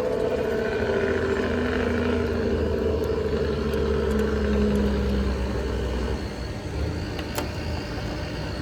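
A steady engine-like motor hum over a low rumble, easing off about six seconds in, with a single short click near the end.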